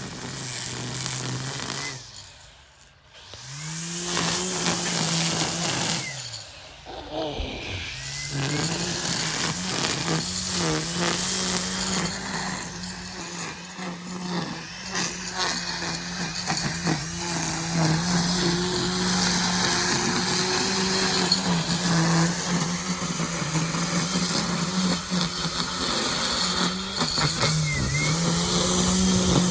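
Ego battery-powered multi-tool running as a line trimmer (whipper snipper), its electric motor spinning at a steady high speed. Twice near the start the trigger is let off and the motor winds down, then spins back up.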